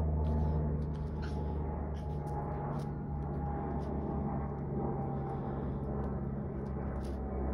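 A steady low machine hum with a faint higher tone, and a few faint scattered clicks.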